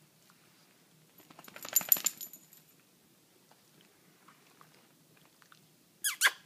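Metal tag on a small dog's collar jingling in a quick run of clinks for about a second and a half, as the dog moves. A short high-pitched squeak near the end.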